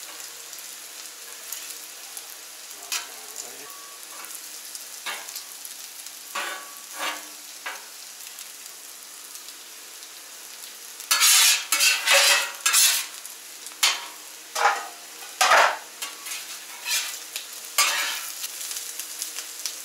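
Bacon, eggs and diced potatoes sizzling on the flat-top griddle. From about eleven seconds in comes a run of loud scraping strokes: a metal spatula scraping across the griddle top as it pushes the potatoes aside.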